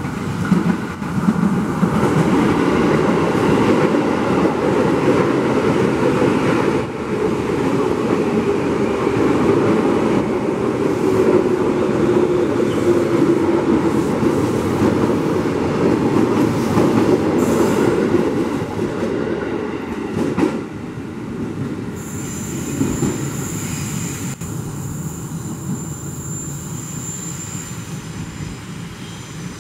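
KRL Commuter Line electric multiple-unit train running close past in heavy rain: a loud rush of wheels on rail with clatter and a faint falling squeal partway through. After about twenty seconds it dies down and a high, steady whine comes in.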